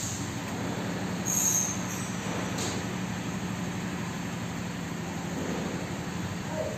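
Steady low mechanical hum from some running machine, with a short high-pitched squeal about a second and a half in.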